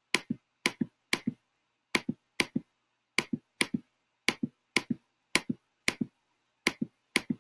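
Computer mouse button clicking about twice a second, each click a quick press-and-release pair, as dots are placed one by one in an on-screen drawing app.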